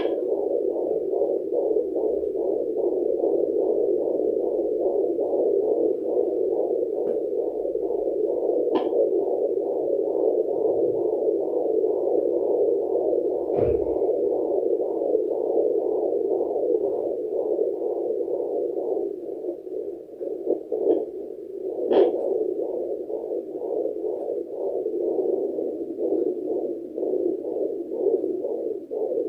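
Handheld fetal Doppler's loudspeaker giving a steady, rapid pulsing heartbeat picked up through the pregnant belly. A few scrapes and knocks of the probe come through, the loudest a little over twenty seconds in, where the signal wavers for a few seconds.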